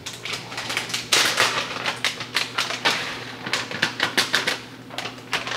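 Plastic cheese package crinkling and crackling in the hands as it is opened and the cheese shaken out into a saucepan: a rapid run of small clicks and rustles, busiest about a second in.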